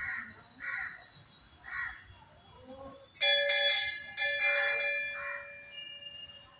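A metal temple bell is struck twice, about a second apart, and its ringing fades away over the next couple of seconds. Crows caw several times in the first two seconds and again between the strokes.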